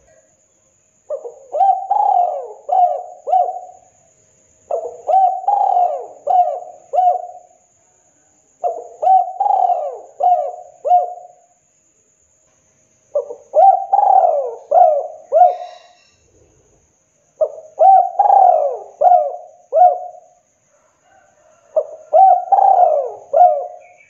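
Spotted dove cooing, six phrases of four or five low coos each, a phrase about every four seconds.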